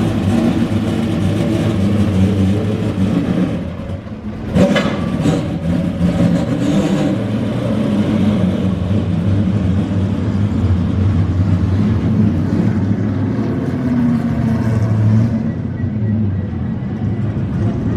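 Race car engines idling and revving in a pit lane, with a brief lull and then a sharp crack about four and a half seconds in.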